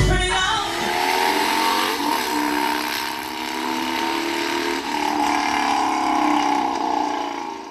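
Motorcycle engine revving at high revs, its pitch rising and easing slowly, fading out near the end.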